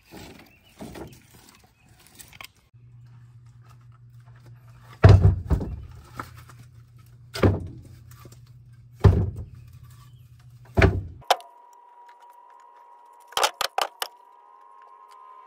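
Split firewood logs set down one after another onto a pickup truck's ribbed bed liner: four heavy thunks about two seconds apart over a low steady hum. Softer knocks come before the thunks, and near the end a steady tone with a few clicks.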